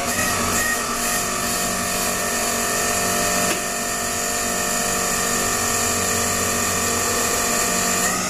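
Crown RR 5700 series reach truck's electric hydraulic pump motor whining steadily as the mast raises the forks, cutting off suddenly near the end. The lift is a test of a fault: the forks stop 15 to 30 cm short of full height.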